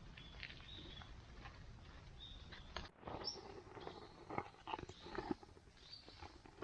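Faint, scattered bird chirps, short high calls with one brief rising note about three seconds in, over light clicks and knocks of handling in the second half.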